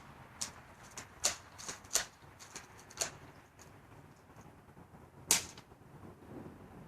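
BB gun: a series of sharp clicks and snaps, irregularly spaced, the loudest one a little past five seconds in.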